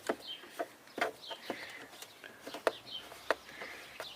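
Irregular light clicks and taps of a screwdriver working a screw on a car's air filter housing, with a few short high chirps in between.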